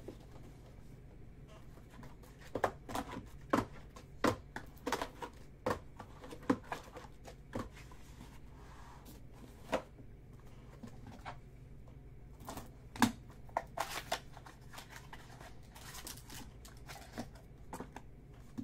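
Cardboard boxes of 2019 Bowman Sterling trading cards being handled: the mini boxes are taken out and stacked on a table. Irregular knocks and taps throughout, the loudest about 13 seconds in.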